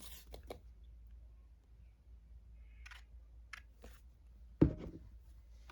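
Quiet handling of paper craft pieces and glue: a few soft clicks and rustles, then one thump about four and a half seconds in.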